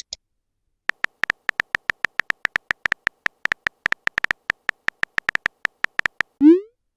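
Phone-keyboard typing sound effect: a quick, irregular run of short tonal ticks. Near the end comes a short rising swoop, typical of a message-sent sound.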